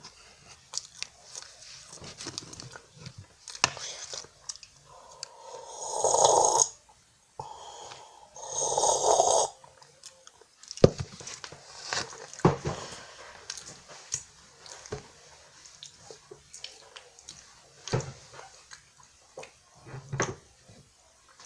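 Close-miked eating sounds from French Pie biscuits: scattered crunching and mouth clicks. A few seconds in come two louder rasping noises, each about a second and a half long.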